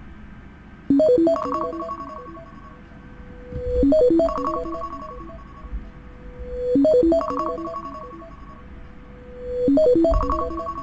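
An iPhone ringtone from the iOS 17 set playing. A short phrase of quick notes ending on a held high note repeats four times, about every three seconds.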